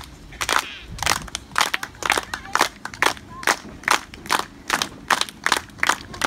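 Spectators clapping close by: sharp, fairly steady hand claps, about three or four a second.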